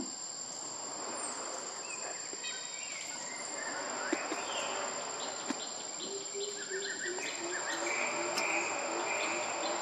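Forest ambience: a steady high-pitched drone of insects, with bird calls coming in a couple of seconds in and a run of rapid repeated notes in the second half.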